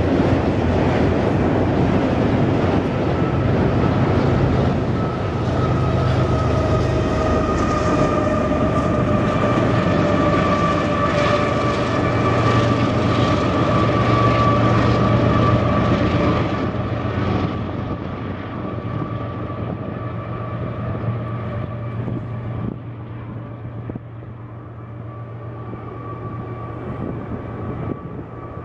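Canadian Pacific double-stack container train rolling across a steel trestle: a steady rumble with clanks and a steady high whine over it. It gets quieter from about 17 seconds in as the rear of the train moves off, the whine lingering faintly.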